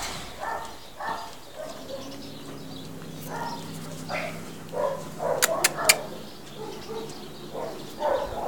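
Dog barking in short bursts, a bark every half second to second with a few pauses. Three sharp clicks close together about five and a half seconds in.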